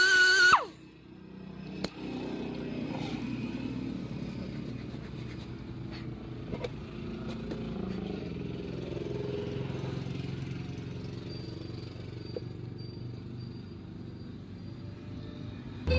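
A tonal musical sound falls in pitch and cuts off within the first second, leaving a steady low mechanical hum with a few faint clicks.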